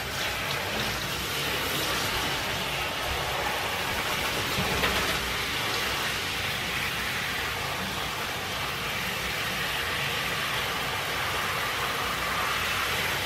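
Handheld bath shower head spraying water steadily onto a small dog and the bathtub floor.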